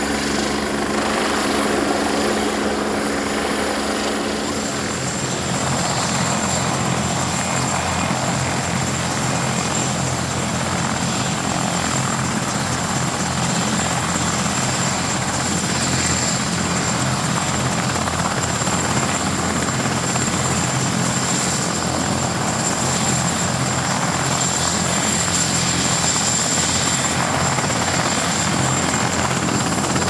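Helicopter hovering overhead; about four and a half seconds in the sound changes to a Bell 412 helicopter running on the ground with its rotor turning, a steady rotor and turbine noise with a constant high turbine whine.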